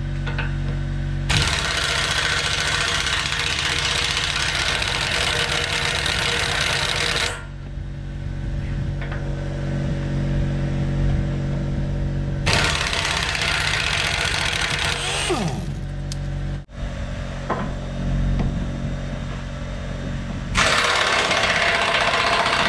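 Pneumatic impact wrench hammering on the cutting-edge bolts of a bulldozer blade in three long bursts, the first about six seconds, a shorter one past the middle and another near the end. A steady low hum runs between the bursts.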